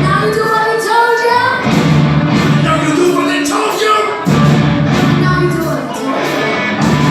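Live rock band playing loud, with a singer over drums, bass and guitars; cymbal crashes recur throughout.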